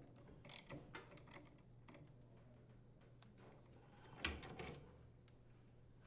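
Faint scattered clicks and light metal knocks of a socket and pliers working on a dryer blower wheel as it is threaded onto the motor shaft and tightened, with the loudest knock about four seconds in.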